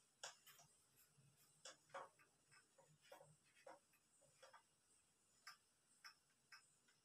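Faint, irregular short wiping strokes of a handheld eraser rubbed across a whiteboard.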